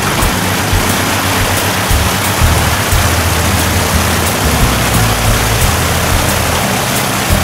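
Piper PA-22-160 Tri-Pacer's four-cylinder Lycoming engine and propeller running at low taxi power as the plane rolls by. It is a steady engine note under a loud, even rushing noise.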